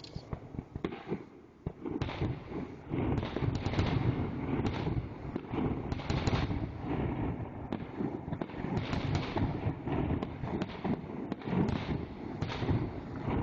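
Fireworks going off in quick succession: many sharp reports and crackles, densest from about two seconds in, each followed by echoing rumble off the canyon walls.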